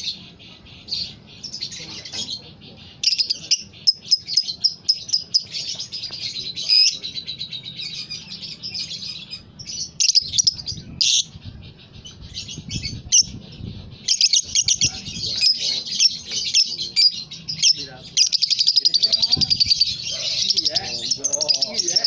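Caged Fischer's lovebird chattering: a rapid, high-pitched twitter, broken into short phrases at first and running on louder and unbroken in the last few seconds.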